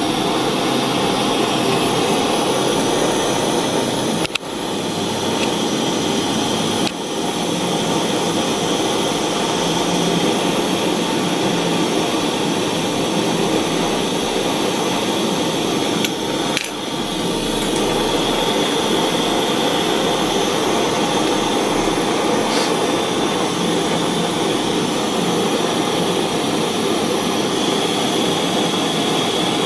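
Small gas soldering torch burning with a steady hiss, heating the silver solder to free a hinge from an eyeglass frame. The flame's sound dips briefly three times, about four, seven and seventeen seconds in.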